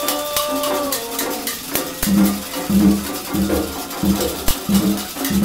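Candomblé ritual music for an Olubajé: singing at the start, then atabaque hand drums come in about two seconds in with a steady beat of about two strokes a second, with sharp percussion clicks over them.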